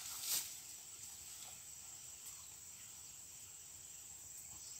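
Faint, steady high-pitched chirring of insects such as crickets, with a single sharp click about a third of a second in.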